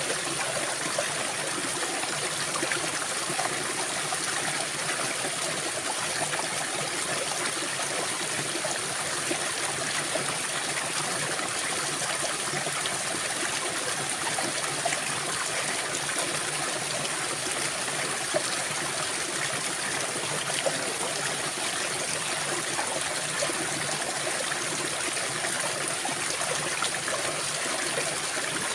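Small stream running and trickling steadily, with a steady high-pitched whine above the water noise.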